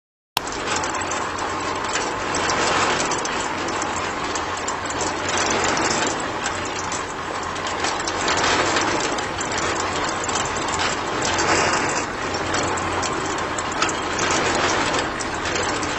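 Miniature homemade cement mixer starting abruptly as it is switched on. Its small electric motor runs and the can drum turns with a steady rattling churn from the wet cement mix inside.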